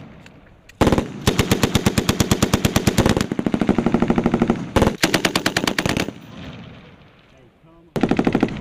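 Belt-fed machine gun firing in bursts of automatic fire: a short burst about a second in, a long run of bursts for about five seconds, then a pause and another burst near the end.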